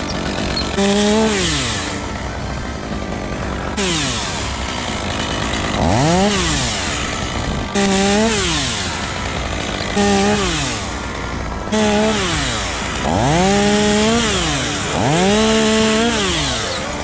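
Chainsaw sawing spruce. Its engine revs up and drops back about every two seconds, over and over.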